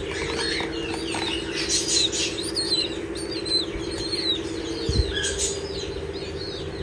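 Small parrots calling: many short, high chirps and squeaks, over a steady low hum. A single low knock about five seconds in.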